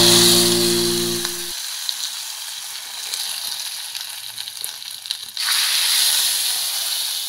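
Hot oil tempering of mustard seeds, curry leaves and dried red chillies sizzling as it is poured into a coconut-based ash gourd curry. The sizzle fades, then flares up sharply again about five seconds in. A few held notes of background music sound under it in the first second and a half.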